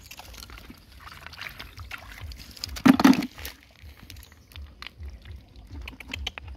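Shallow stream water sloshing and trickling as hands rummage through it picking up snails, with scattered small knocks and one louder splash about three seconds in.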